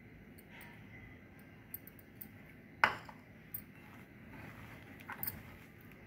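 Hands mixing breadcrumbs into mashed potato and vegetables in a glass bowl: a few light glassy clinks and taps over quiet handling, the sharpest about three seconds in.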